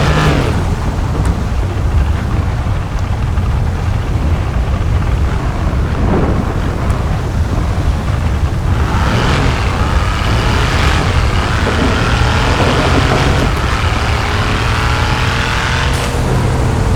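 Mercedes car's engine and exhaust running loudly, with the pitch climbing through the second half as it revs up.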